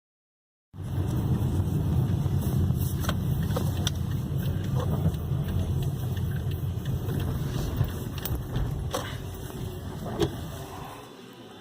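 A car driving, heard as a steady low road rumble with scattered clicks and rattles. The rumble drops away suddenly near the end.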